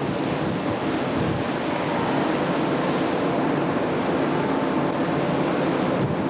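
Steady rush of sea waves along a ship's side, with wind buffeting the microphone and a low steady hum underneath.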